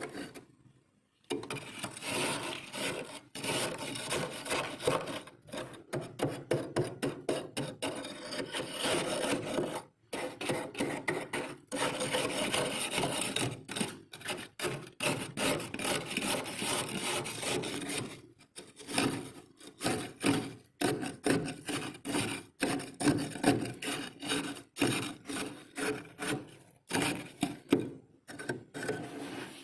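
Freezer frost being scraped, a dense rasping scrape that starts about a second in. It later breaks into short separate scraping strokes, about two a second.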